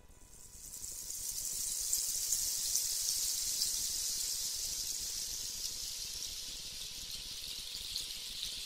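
Rushing water as a high, even hiss with faint crackles through it, swelling in over the first couple of seconds and then slowly fading.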